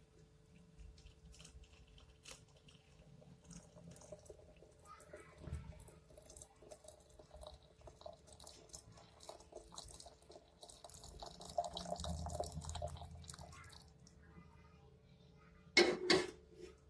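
Kitchen liquid-handling sounds: small drips and light clicks of water or tea being handled, with a faint steady hum underneath and two louder knocks near the end.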